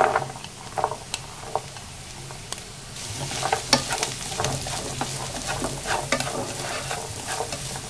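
Diced carrots tipped into a hot nonstick frying pan of Chinese sausage and dried shrimp and stir-fried with a wooden spatula: a sizzle with a few scrapes and taps at first, then from about three seconds in a louder sizzle with quick, repeated scraping strokes.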